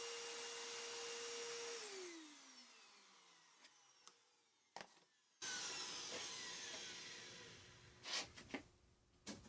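Makita router motor running at a steady high whine, then switched off about two seconds in and spinning down with falling pitch. After a click, a second whirring starts suddenly and winds down with falling pitch, followed by a few sharp clicks near the end.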